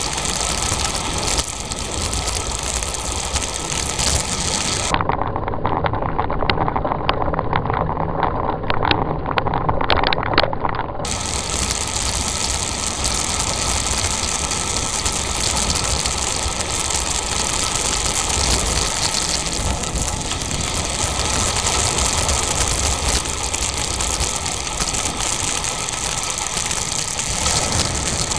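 Steady wind and road noise of a bicycle rolling along an asphalt lane, with scattered rattling clicks from about five to eleven seconds in.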